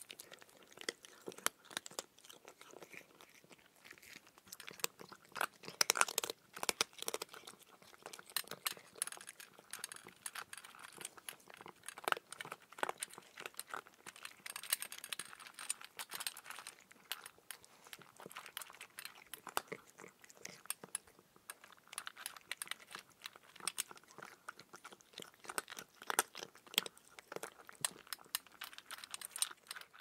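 A cat crunching and chewing dry kibble, with many small sharp crunches in quick, irregular succession.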